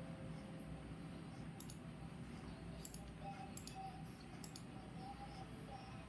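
Faint, unevenly spaced clicks, some in close pairs, over a steady low background hum.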